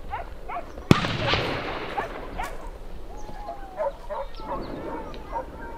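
A pack of hunting dogs (rehala hounds) barking, yelping and baying, with a few longer howls from about halfway through. One sharp rifle shot cracks out about a second in.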